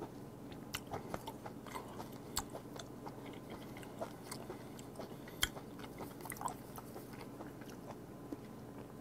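A person chewing raw sea squirt, soft wet mouth clicks at irregular intervals.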